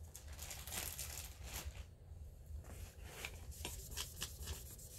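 Faint handling sounds: a black jewelry testing stone being wiped with a soft white pad, a light rubbing broken by scattered small clicks and taps.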